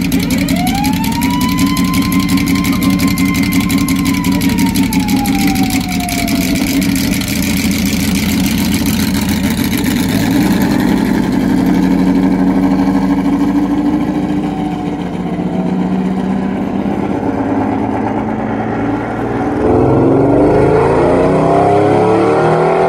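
Jaguar XJ13's quad-cam five-litre V12 running as the car pulls slowly away, under crowd applause that fades out about halfway through. About twenty seconds in, the V12 revs up hard and louder as the car accelerates away.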